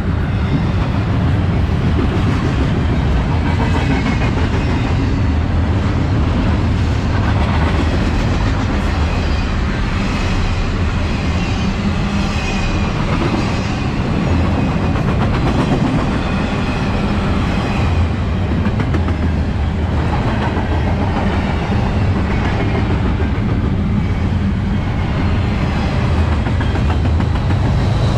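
Double-stack intermodal container cars of a freight train rolling past: a steady, loud rumble of steel wheels on rail with clickety-clack clatter.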